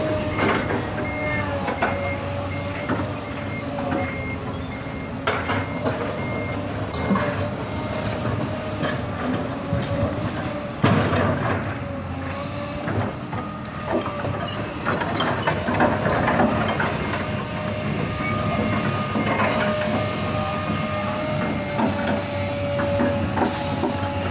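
Komatsu hydraulic excavator running, its diesel engine and hydraulic pump giving a steady whine while the steel bucket scrapes and knocks against rock again and again, loudest about eleven seconds in. A faint high beep repeats through the first several seconds.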